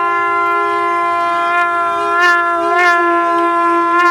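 Conch shells (shankh) and a long brass horn blown together, holding one steady, sustained note with a slight waver about two and three seconds in.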